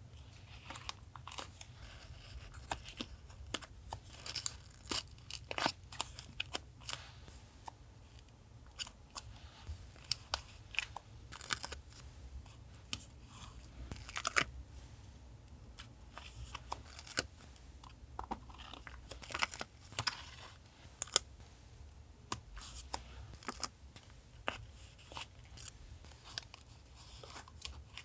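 Paper being handled close to the microphone: rustling, crinkling and tearing, heard as irregular crisp crackles and snaps, over a steady low hum.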